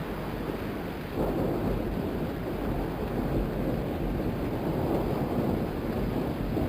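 Thunderstorm sound effect: steady rain with rolling thunder rumbling, swelling louder about a second in.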